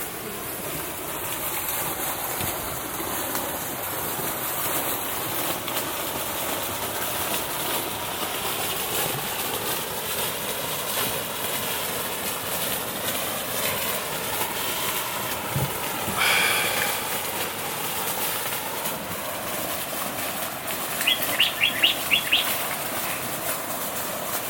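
A bird calling: a quick run of about six short, sharp notes near the end, over a steady rushing background noise.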